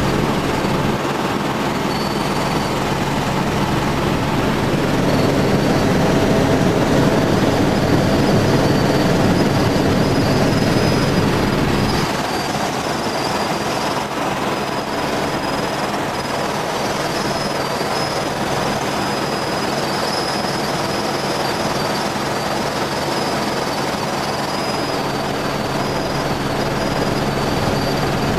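Helicopter in flight, heard from inside the cabin: a steady engine and rotor drone with a thin high whine. The drone grows louder about five seconds in and drops back suddenly about twelve seconds in.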